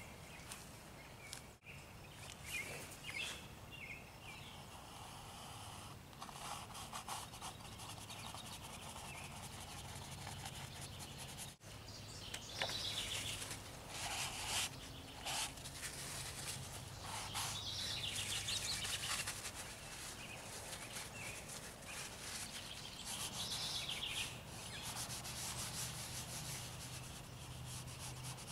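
Folded paper towel rubbed over a canvas to blend wet oil paint, in repeated scratchy scrubbing strokes that come in clusters, busiest in the second half.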